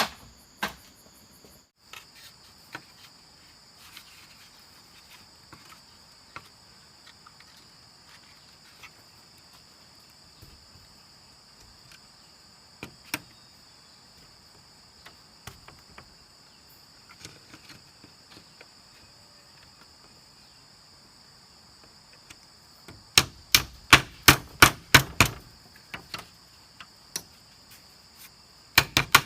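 Steady insect chorus with scattered light knocks, then a quick run of about ten sharp strikes a little over twenty seconds in and two more near the end, typical of hand work on wood or bamboo.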